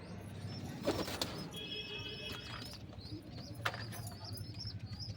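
Domestic pigeons cooing in a low, continuous murmur, with repeated short high chirps over it and two sharp clicks, about a second in and again near three and a half seconds.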